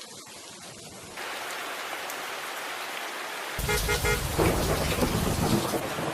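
Steady rain falling, getting louder about a second in. Past the middle a deep low rumble joins it, with a few short tones just as it starts.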